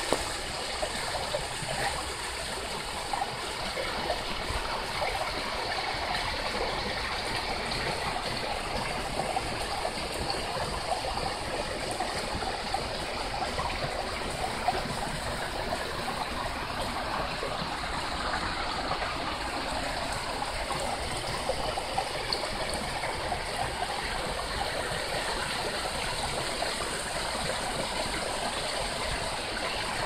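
Small creek waterfall running in thin cascades over stepped bedrock ledges: a steady rush and trickle of falling water.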